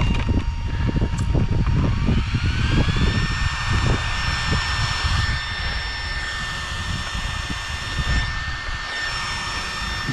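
Small electric cooling fans on an RC car's motor whirring, their whine rising in pitch over about a second and a half and then holding steady. Strong wind buffets the microphone throughout.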